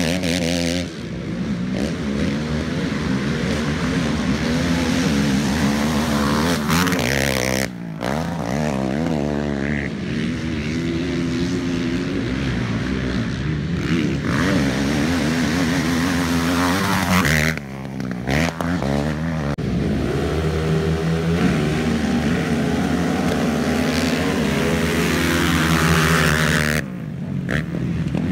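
450-class sport ATV engines revving hard and backing off, their pitch rising and falling with the throttle. The sound breaks off briefly about four times.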